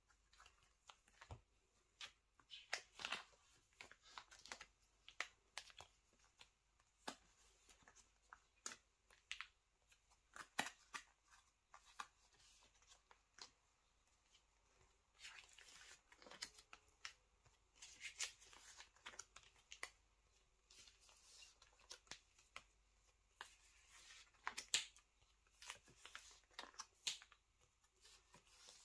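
Faint handling of photocards and plastic card sleeves: scattered light taps and clicks, with a few short plastic rustles as cards are slid into sleeves and pocket pages.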